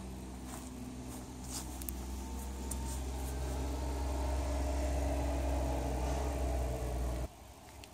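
A steady low engine hum that grows louder over a few seconds, then cuts off abruptly near the end, with a few faint clicks over it early on.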